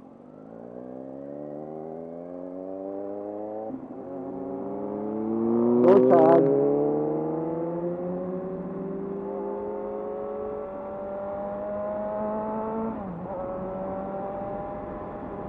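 Kawasaki Z1000 inline-four engine accelerating hard through the gears, its pitch climbing and then dropping at upshifts about four and thirteen seconds in. A brief loud rush of noise about six seconds in is the loudest moment.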